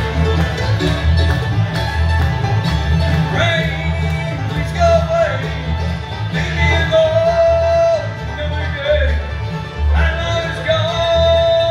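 Live bluegrass band playing, with banjo, acoustic guitar and upright bass keeping a steady beat, and long held melody notes over the top from about three seconds in.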